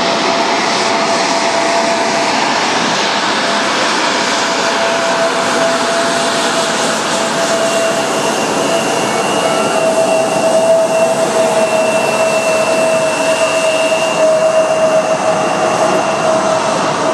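Blue Impulse Kawasaki T-4 jet trainers flying overhead, a steady jet engine noise with a steady whine in it that grows a little louder about two-thirds of the way in.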